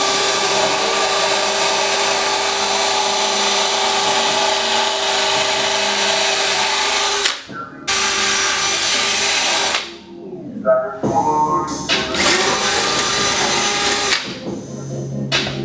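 Cordless drill spinning a wire wheel against the car body's sheet metal to strip out old seam sealer: a steady motor whine with harsh scrubbing. It stops about seven seconds in, runs briefly, winds down, then runs again until near the end.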